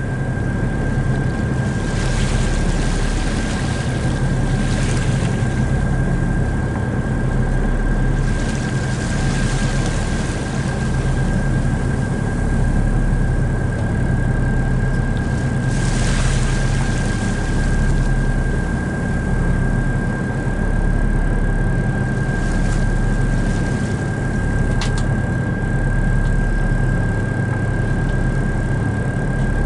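Tour boat's engine running steadily under way, a low drone with a constant thin high whine over it. Brief rushes of hissing noise come and go every few seconds.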